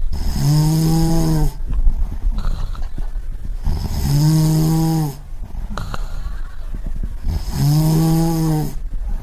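A person snoring: three drawn-out, buzzy snores about four seconds apart, each a little over a second long, with a breathy rush of air between them.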